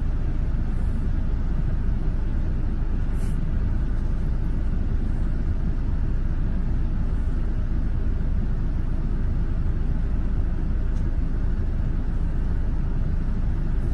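Steady low rumble heard from inside a car's cabin: the car's engine and road noise.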